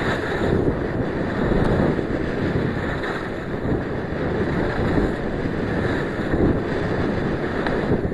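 Wind rushing over the microphone of a skier's point-of-view camera during a fast slalom run, with skis scraping on the snow through the turns.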